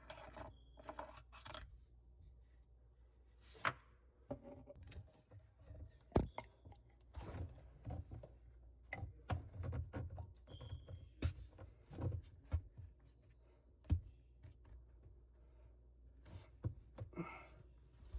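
Irregular clicks, knocks and short scrapes of tools and parts being handled, with a few sharper knocks, the loudest about six seconds in.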